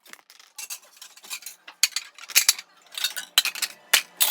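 Dishes and kitchenware clinking and knocking as they are taken out of a dishwasher rack: a quick, irregular run of bright clinks and clatters.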